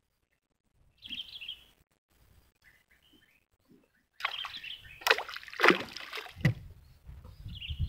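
Small birds chirping about a second in. From about four seconds, a run of loud splashing and knocking from water against a small wooden boat, with the loudest strokes close together, then a steady low rumble.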